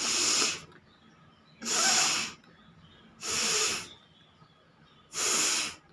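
A person forcefully blowing air out through the nose four times, each a short hissy blast about a second and a half to two seconds apart.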